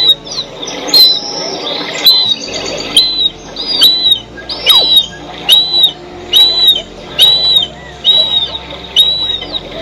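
Marsh harrier calling: a high, arched note repeated about once a second, over soft background music.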